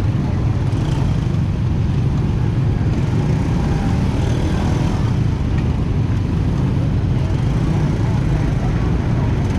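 Steady low rumble of a vehicle under way.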